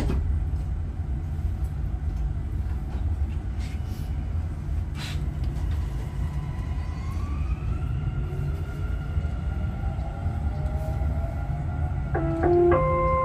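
Dubai Metro train running, heard from inside the carriage: a steady low rumble, with motor whine rising in pitch as the train pulls away from the station and gathers speed from about halfway through. Near the end, a short electronic announcement chime sounds.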